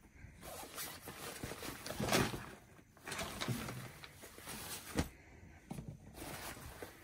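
Irregular rustling and knocking of things being moved about, with a sharp knock about five seconds in.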